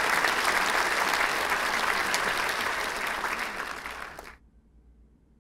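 Crowd applauding, many hands clapping at once, getting slowly quieter and then cutting off suddenly about four seconds in.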